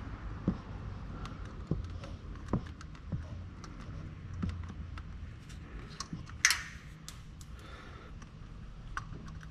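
Scattered small metal clicks and taps as a 10 mm nut is worked off the signal-wire terminal of a starter motor, with one louder scrape about six and a half seconds in.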